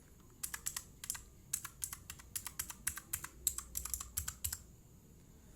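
Mechanical keyboard keys typed in quick runs of sharp clacks that stop a little past four and a half seconds in. The keys tested are a mix of undamped ones and ones fitted with membrane-sheet dampers under the keycaps to soften the bottoming-out.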